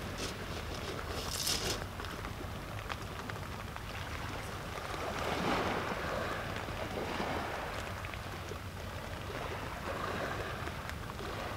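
Sea waves washing onto the beach, a steady wash that swells about five seconds in, with a low rumble underneath.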